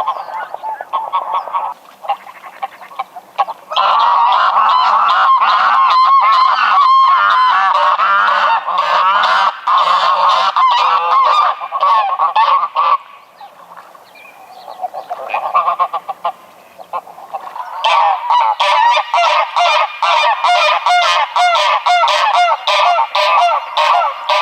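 Greylag geese honking, several calls overlapping in a loud stretch, easing off about halfway, then a quick run of short honks, about three a second, near the end.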